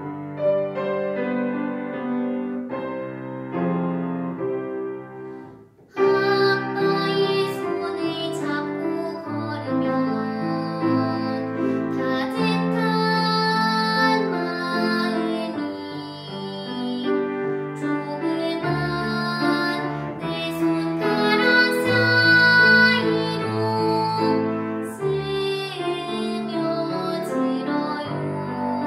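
Grand piano playing alone for about six seconds, then a young girl's voice comes in, singing in classical style over the piano accompaniment.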